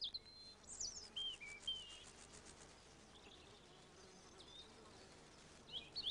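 Faint outdoor countryside ambience: small birds giving short, high chirps and whistles that glide in pitch, in a cluster during the first two seconds and again near the end, over a faint steady drone.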